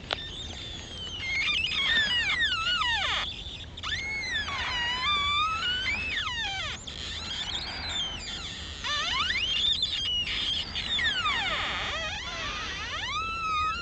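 Ice singing and creaking: a string of overlapping eerie whistling glides, mostly falling in pitch and some rising, sounding like laser zaps or a theremin.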